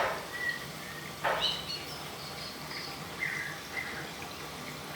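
Water draining out of a single-tub automatic washing machine on its automatic drain step, a steady rush of water with a faint low hum. A single sharp knock about a second in.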